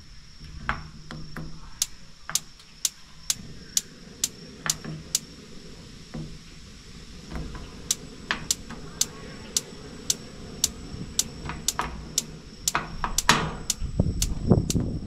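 A Nexgrill gas grill's igniter snapping with sharp, regular clicks about twice a second while the burner knobs are worked, pausing once in the middle. Near the end the clicks crowd together under a louder burst of low noise. A steady faint high insect tone runs underneath.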